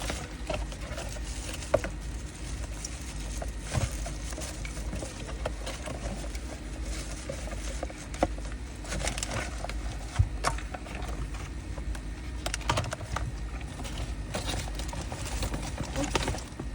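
Packaging being handled and opened: scattered taps and clicks with rustling, over a steady low hum.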